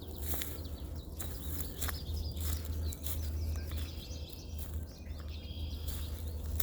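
A bird singing in short chirping phrases from about four seconds in, over a steady low rumble of wind on the microphone and scattered footsteps.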